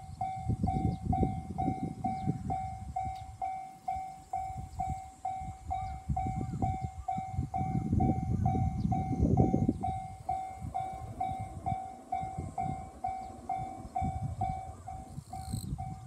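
Japanese railway level-crossing warning bell starting up and sounding steadily, one ringing tone repeated about twice a second. It signals that a train is approaching and the crossing is closing. An uneven low rumble runs underneath.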